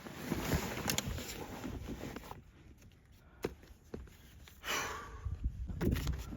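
Hand pump inflating an inflatable paddleboard close to its 15 PSI mark: hard-worked strokes of rushing air for about two seconds, a pause, then one more rush of air near the end.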